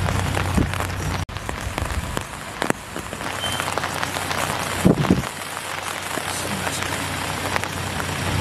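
Steady rain pattering on surfaces, with the low steady hum of a loader's engine underneath and a few short knocks about five seconds in.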